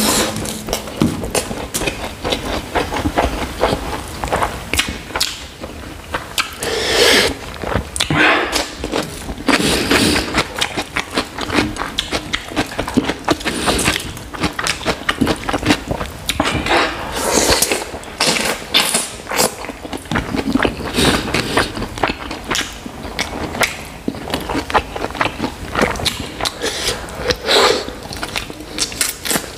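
Close-miked eating sounds: wet chewing and lip-smacking of rice and chicken curry eaten by hand, with fingers squishing and mixing rice on a foil-lined platter. There are many small clicks throughout and several louder bursts.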